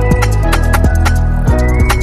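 Background electronic music with a steady beat and heavy bass.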